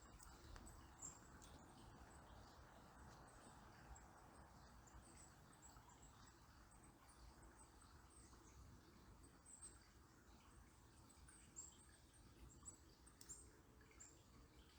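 Faint, steady murmur of a calm river, with many brief, thin, high chirps from small birds scattered throughout.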